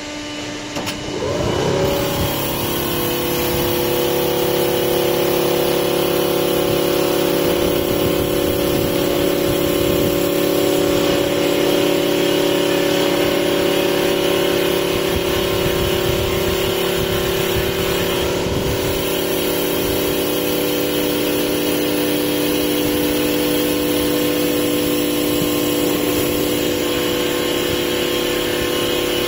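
Small automatic-feed CNC wood lathe running and turning a wooden blank, a steady machine hum with a constant noisy cutting sound. It builds up over the first couple of seconds, then holds level.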